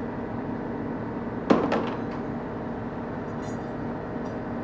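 A single sharp metallic clink about one and a half seconds in, a metal part or tool striking metal and ringing briefly, over a steady mechanical hum; two faint ticks follow later.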